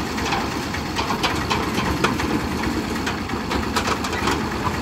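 Piaggio Ape goods autorickshaw's engine idling with a steady low, pulsing rumble. Scattered sharp clicks and knocks come from the metal tailgate of its cargo bed being handled.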